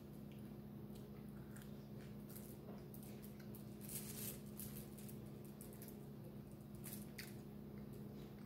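Faint eating sounds: wet chewing and fingers picking at grilled fish and rice on a foil-lined tray, scattered short soft clicks and crinkles with the loudest about four seconds in. A steady low hum runs underneath.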